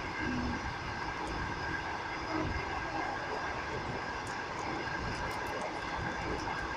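Steady rumble of a moving passenger train heard from inside the carriage, its wheels running on the rails.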